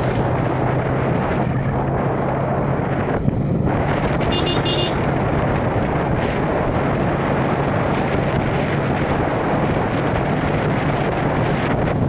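Wind rushing over the microphone and a steady engine drone from a vehicle travelling along a road. A short double horn beep sounds about four and a half seconds in.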